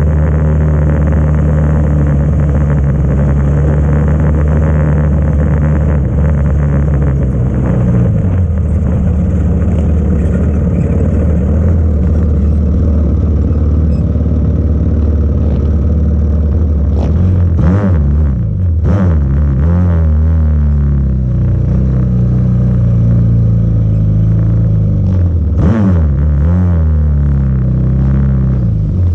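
Yamaha YFZ racing quad's engine at race pace: it holds high revs for several seconds, then revs rise and fall repeatedly with the throttle, with quick drops and climbs in pitch about two-thirds of the way in and again near the end.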